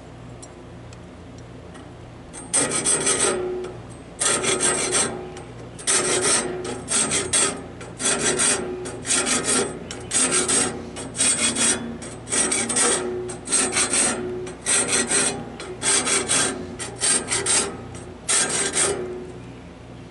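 Hand file scraping across the steel teeth of a Wood-Mizer LT15 bandsaw blade, starting about two and a half seconds in with some sixteen short strokes, often in pairs. The file is dressing the face of each tooth to take the black off and leave a shiny, straight edge.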